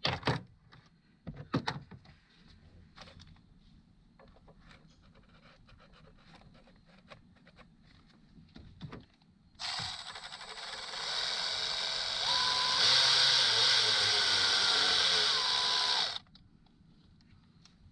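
Light clicks and knocks of bolts and hand tools, then about ten seconds in a cordless power tool runs continuously for about six seconds, its motor whine climbing as it spins cover bolts in, and stops suddenly.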